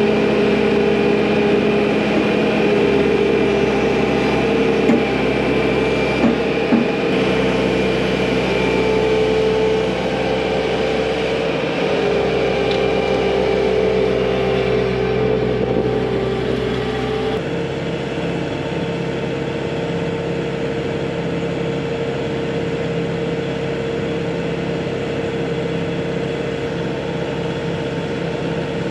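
Bobcat compact track loader's diesel engine running under throttle, with three short knocks about five to seven seconds in. About two-thirds of the way through, the note changes abruptly to a steadier, slightly quieter idle.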